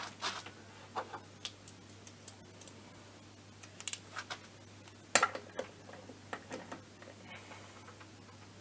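Scattered light clicks and clinks of metal hand tools being handled on a workbench as a socket and wrench are picked out for torquing the transmission cover bolts, with a sharper click about five seconds in.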